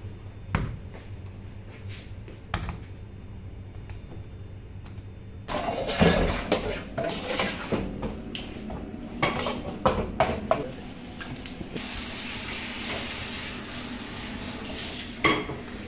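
A few light taps, then metal pans and utensils clattering on a gas stove from about five seconds in. From about twelve seconds in comes a steady sizzle of eggs frying in oil with tomato and onion.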